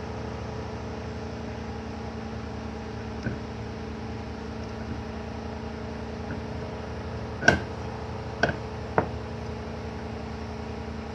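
Steady machine hum, with a faint knock early on and three sharp knocks of tool or metal on metal in quick succession about two-thirds in.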